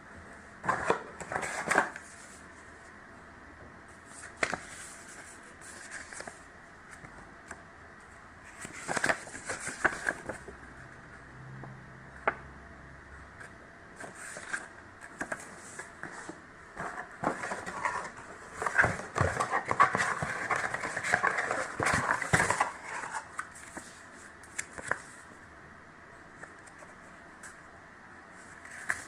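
Close-up handling sounds: scattered clicks and taps with bursts of rustling, busiest about two-thirds of the way through.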